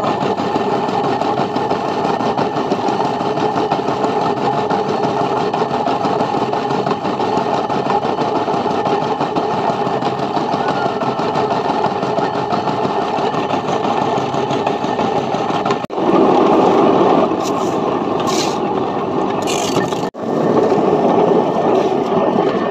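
Centrifugal concrete pipe-spinning machine running, the steel pipe mould turning on its drive wheels with a loud, steady mechanical running noise. The noise cuts out for an instant twice in the second half and comes back slightly louder.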